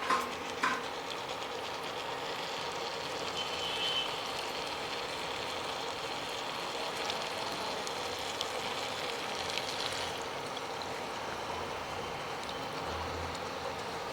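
Onions and turmeric frying in oil in a pan, a steady sizzle, with a couple of clinks near the start.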